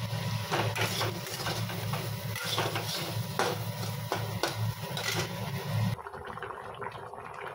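Metal spatula scraping and clacking against a metal kadai as pieces of hilsa are stirred through frying spice paste and oil, over a steady low hum. The hum cuts off about six seconds in, leaving a quieter background.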